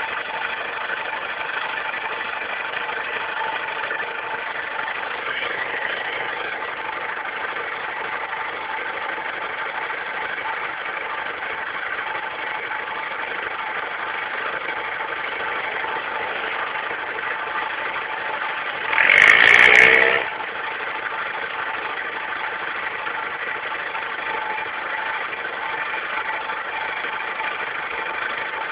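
Yamaha Raptor ATV engine idling steadily, recorded through a low-quality cell-phone microphone. About two-thirds of the way through, a louder burst of about a second cuts in, its pitch bending up and down.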